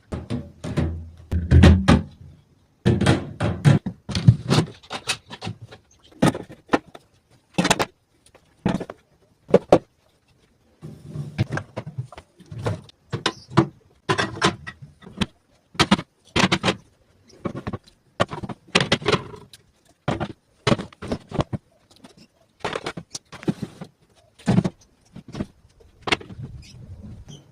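Things being handled and set down: a long series of irregular knocks, thunks and clatters, heaviest in the first couple of seconds.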